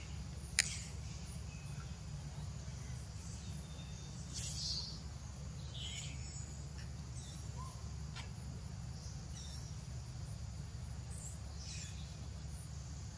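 Outdoor woodland ambience: a steady low rumble with faint, scattered high chirps, and one sharp click just after the start.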